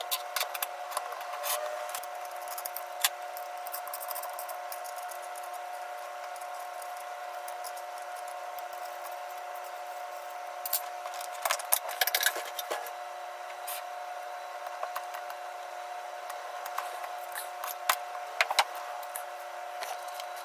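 Clicks and knocks of a UTG Bug Buster rifle scope and its metal ring mounts being handled and fitted, with a small hex key working a ring screw, coming in clusters near the start, about halfway and near the end. A steady hum runs underneath.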